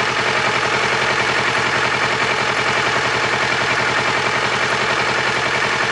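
Engine running steadily with an even, rapid pulsing, a noise the owner finds strange.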